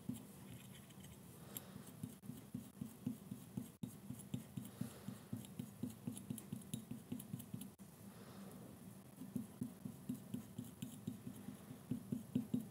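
Small handling sounds of craft work at a table: a run of light taps and clicks, about three to four a second, as materials are handled.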